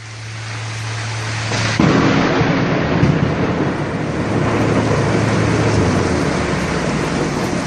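Heavy rain falling, with a thunderclap about two seconds in that rumbles on for several seconds.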